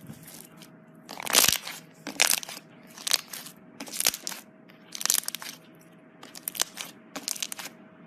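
Crunchy slime being pressed and squeezed, crackling in about seven short bursts, roughly one a second.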